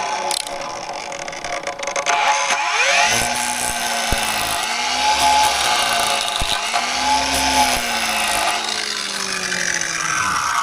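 Alsameka four-blade pine-tapping power tool running and cutting into a pine trunk to renew the resin-tapping groove. Its motor pitch dips and recovers several times as the blades bite, with a couple of short knocks.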